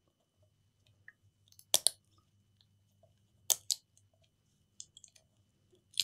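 Short crackling clicks and crinkles from laptop screen parts and their taped cable being handled, a few separate sharp ones, the loudest about two and three and a half seconds in.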